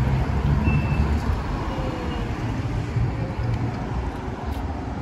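Road traffic on a city street: a steady low rumble of passing vehicles.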